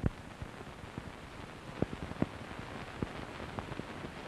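Steady hiss with a faint low hum and scattered sharp clicks and crackles: the background noise of an old recording.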